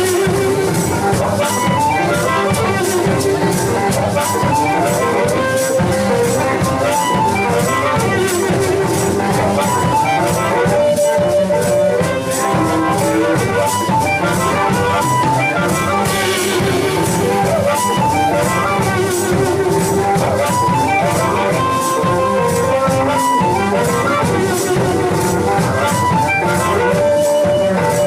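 Live blues band playing an instrumental passage: harmonica blown into a hand-held microphone, hollow-body electric guitar and drums, with the drummer shaking maracas in a steady rhythm.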